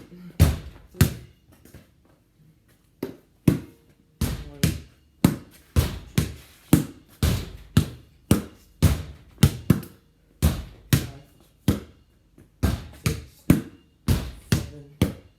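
A basketball being hit over and over against a garage door, a rally of sharp thuds about two a second, with a short lull a couple of seconds in.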